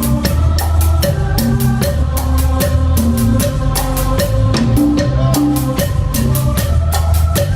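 Live band playing an instrumental: a drum kit keeps a steady beat with quick, regular cymbal or hi-hat strokes, about four to five a second, over a deep bass line and held keyboard-like notes.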